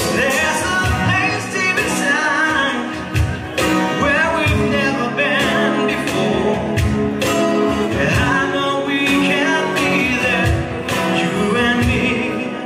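Live acoustic band music: a man singing over a strummed acoustic guitar, with a cajon knocking out a steady beat.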